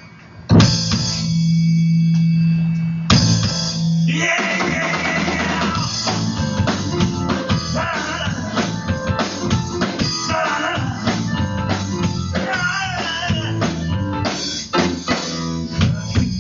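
Live rock band recording: a held chord that ends about three seconds in, then the full band with drum kit and electric guitar comes in about four seconds in and plays on.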